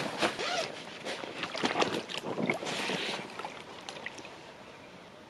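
Water splashing and sloshing, with scattered knocks and rustles of handling, loudest at the start and dying away after about three and a half seconds.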